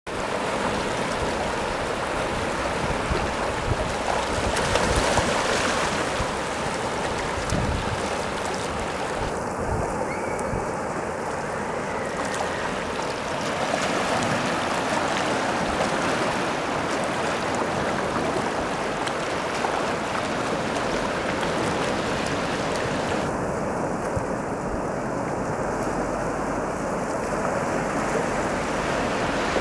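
Seawater washing over and around shoreline rocks, a steady rushing of surf and swirling water.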